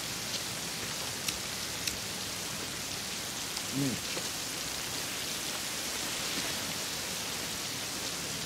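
Heavy rain pouring steadily off a roof edge onto pavement, an even hiss, with a few sharp drip-like ticks in the first two seconds and one short, low voiced sound about four seconds in.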